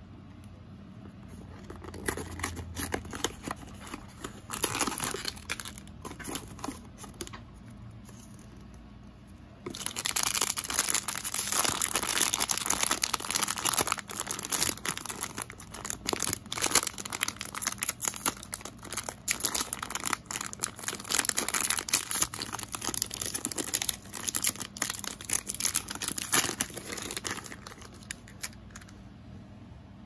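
Softer rustling and scraping of a small cardboard toy box being handled and opened, then, from about ten seconds in, loud, continuous crinkling of a plastic blind bag as it is torn open and handled, dying away a few seconds before the end.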